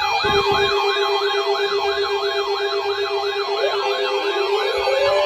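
Electronic siren sounding a fast yelp, its pitch sweeping up and down about three times a second over a steady lower tone, with a slower rising wail joining near the end.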